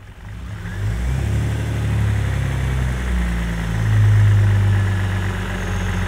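2003 Jeep Grand Cherokee engine idling. Its sound dips right at the start, picks up again within the first second and swells about four seconds in.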